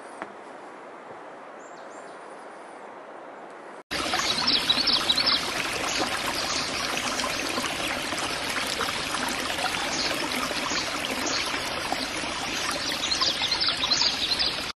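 A faint steady hiss with a few short high chirps, then, about four seconds in, a sudden change to the loud, steady splashing of a stream of water falling from a wooden spout into a pond.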